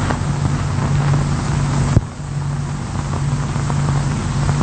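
Steady low engine drone of heavy machinery, with a sharp click and a brief dip in level about two seconds in.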